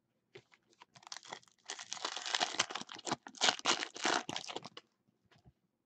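Clear plastic wrapper of a trading card pack crinkling and crackling as it is torn open by hand. A dense crackle runs from about a second in until shortly before the end.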